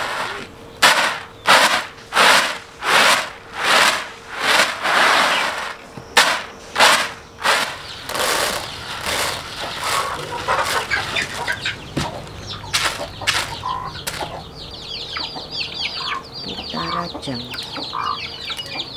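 Dried black-eyed peas being winnowed on a woven bamboo tray: the beans rattle and swish across the weave in a regular rhythm, about three strokes every two seconds, slowing to looser, scattered strokes after about eight seconds. In the last few seconds chickens cluck and chirp.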